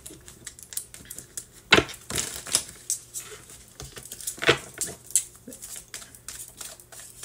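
Hands handling a small deck of cards and a cloth pouch: irregular rustling and light clicks, with a couple of sharper taps, the loudest about two seconds in.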